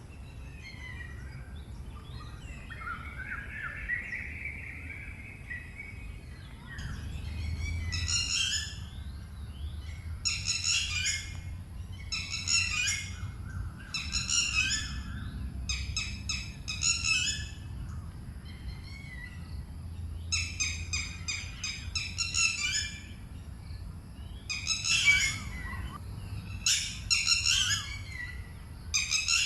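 Red-wattled lapwings calling: repeated bursts of loud, shrill notes every second or two, starting about seven seconds in, after a lower wavering call in the first few seconds. This is the bird's 'did-he-do-it' call, which it gives in alarm when people approach.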